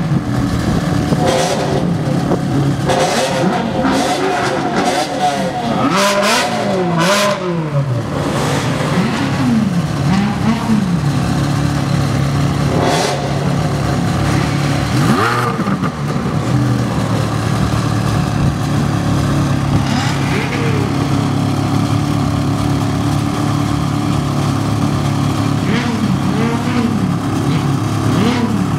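Ferrari 360 Challenge Stradale's V8 idling and being blipped again and again, the revs shooting up and dropping back in quick arcs. There is a rapid run of blips in the first eight seconds, then single blips every few seconds over the steady idle.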